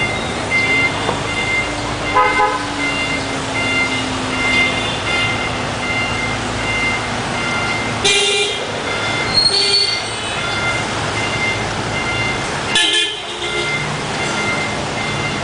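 Busy street traffic with vehicle horns honking: four short toots, about 2, 8, 9.5 and 13 seconds in, over a steady hum of passing vehicles.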